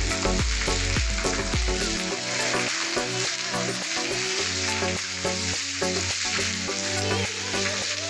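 Heavy rain falling steadily with a dense hiss, with background music underneath. The music's deep bass drops out about two seconds in.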